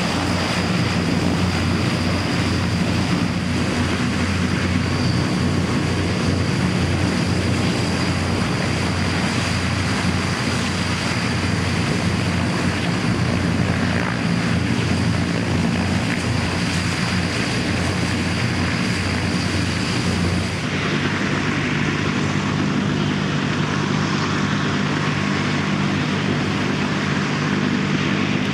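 Antonov An-32's two Ivchenko AI-20 turboprop engines running at taxi power: a steady propeller drone with a high turbine whine over it. About two-thirds of the way through the sound changes abruptly, the whine drops out and the drone goes on at a slightly different pitch.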